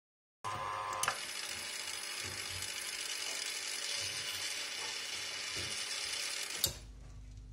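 Hemauer Miniatur de luxe jukebox record-changer mechanism running with a steady hissing whir, as the carriage reaches its top stop and the carriage and record spindle reverse direction. There is a click about a second in and a sharp click near the end, after which the whir gives way to a low hum.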